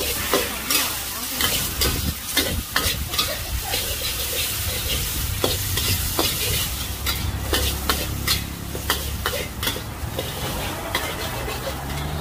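Metal spatula scraping and clinking against a wok in quick, irregular strokes as noodles and egg are stir-fried, over a steady sizzle of frying.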